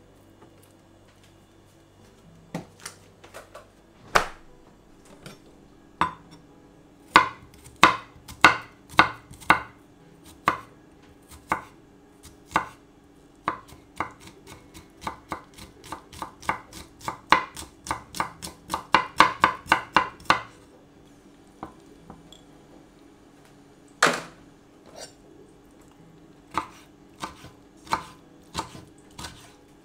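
Kitchen knife chopping on a wooden cutting board, mincing garlic and then cutting kimchi. Sparse knocks at first, quickening to a fast run of strokes that stops suddenly about two-thirds of the way through, then a few single, spaced cuts.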